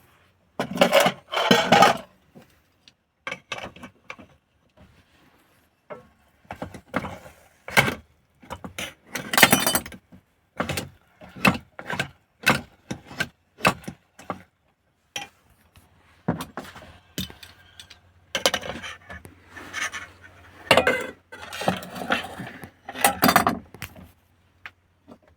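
Irregular clinking, clattering and rustling of camp cooking gear and food packages being handled while oatmeal is made, in short clusters with brief pauses.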